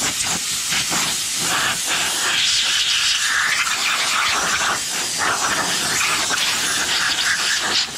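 Compressed-air blow gun blasting air over a transmission case to clear away grinding dust: a loud, steady hiss that dips briefly a few times as the trigger eases.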